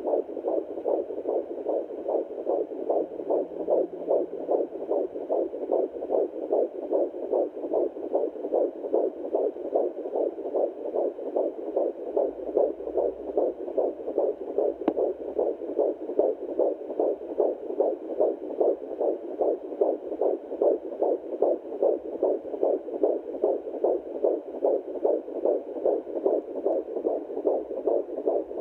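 Fetal heartbeat at 14 weeks of pregnancy, picked up by a handheld TempIR Angel Heart fetal doppler and played through its speaker. It is a fast, even pulse of about two to three beats a second, steady throughout.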